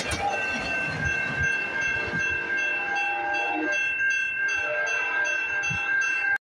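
Amtrak Midwest passenger train rolling away over the rails with low wheel clatter, while grade-crossing warning bells ring steadily. The sound cuts off abruptly near the end.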